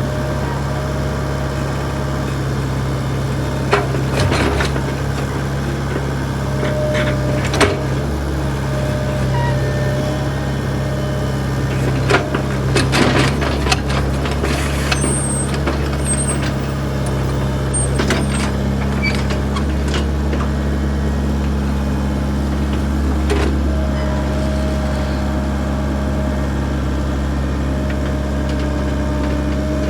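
Backhoe's diesel engine running steadily under work, with scattered sharp clanks and knocks, a cluster of them about midway.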